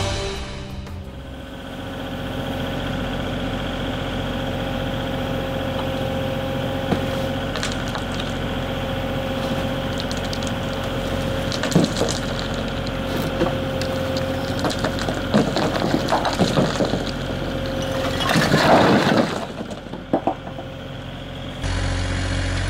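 Mini excavator's diesel engine running with a steady hydraulic whine, with scattered knocks and scrapes of concrete blocks being broken and handled. About nineteen seconds in there is a loud clatter of blocks. Near the end it gives way to a lower, steadier engine hum.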